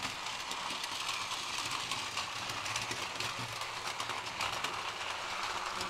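Battery-powered toy BNSF train running on plastic track: a steady small-motor whir with many small clicks from the wheels and track.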